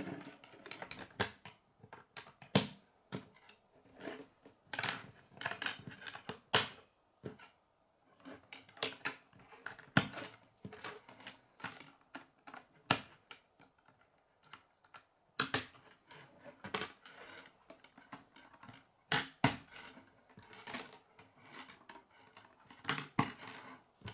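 K'nex plastic rods and connectors being handled and snapped together by hand: irregular sharp clicks and clatter, with a few louder snaps.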